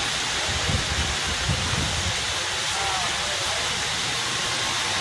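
Heavy rain pouring down as a steady, dense hiss, with a few low rumbles in the first two seconds.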